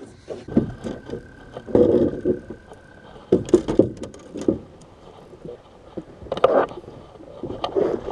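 Irregular thumps and knocks of people shifting their footing and gear in a small fishing boat, loudest in clusters about two seconds in, three and a half seconds in and near six and a half seconds.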